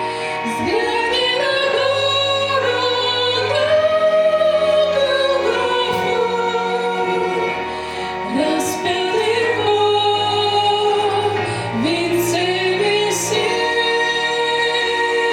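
A woman singing long held notes that slide up into each phrase, over sustained instrumental backing, in a Christian song.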